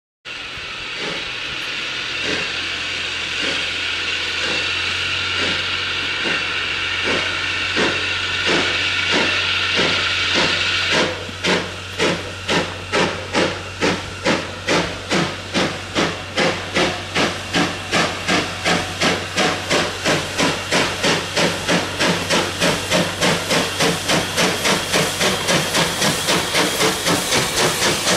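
LSWR T9-class 4-4-0 steam locomotive No. 30120 working a train. For about the first eleven seconds a loud hiss of steam from its open cylinder drain cocks covers its exhaust beats. Then the hiss stops suddenly and the sharp exhaust beats take over, quickening steadily from about two to about three a second.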